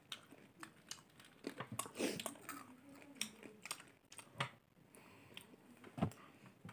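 Popcorn being crunched and chewed: a run of faint, crisp clicks and crunches at an uneven pace.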